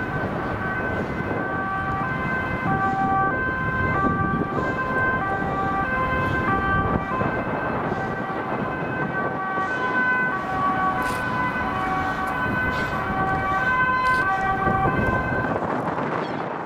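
Emergency vehicle's two-tone siren alternating between a high and a low note, over steady road-traffic noise; the siren stops near the end.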